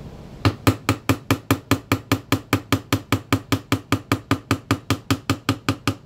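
Mallet tapping a small steel pin punch in a steady run of about five light strikes a second, drifting a roll pin out of a pistol frame resting on a bench block. The strikes start about half a second in and stop just before the end.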